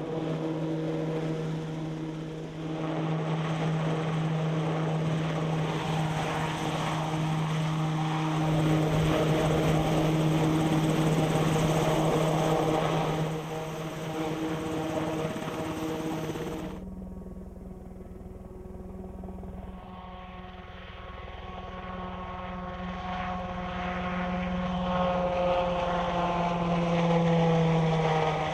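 Piasecki X-49A compound helicopter in flight: a steady drone of rotor, turbines and ducted pusher propeller. The sound changes abruptly about two-thirds of the way through, and near the end its pitch falls as the aircraft passes by.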